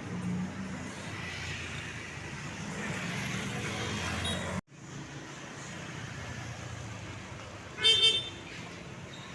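Road traffic with the low rumble of passing vehicle engines, which breaks off sharply about halfway. Steadier road noise follows, then a loud, short double toot of a vehicle horn near the end.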